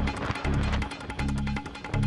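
Background music with a steady beat: a short low bass note about every three-quarters of a second under quick, even ticking percussion.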